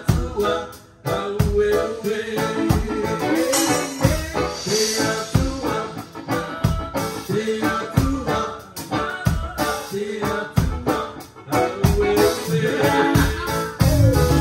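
Live band playing a song with a woman singing, over a steady drum beat, bass, guitar and keyboard, heard up close from on stage beside the drum kit. The beat drops away briefly about a second in, then carries on.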